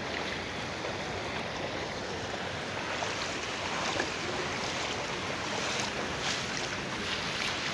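Floodwater sloshing and splashing steadily as people wade through a flooded street, with a few sharper splashes in the second half.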